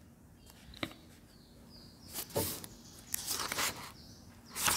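Paper rustling in short bursts, with a sharp click about a second in.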